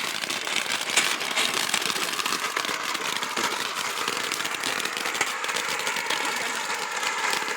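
Ground firework fountain spraying sparks, a steady crackling hiss made of many tiny pops.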